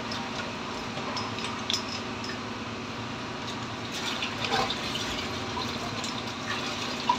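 High-pressure drain jetter running: a steady motor hum with water jetting and gushing through the hose inside a blocked drain, with a few light knocks.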